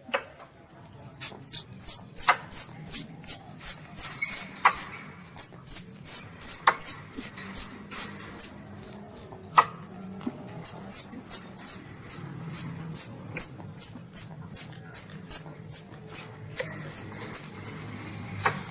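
Asian palm civet kittens calling: a rapid run of short, high, thin squeaks, each falling in pitch, about three a second, with a brief pause about ten seconds in and another near the end.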